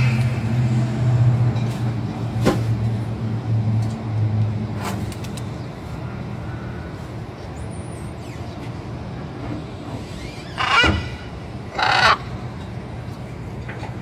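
Blue-and-gold macaw giving two loud, harsh squawks about a second apart near the end. Before them, a steady low hum of a vehicle engine that fades out after the first few seconds.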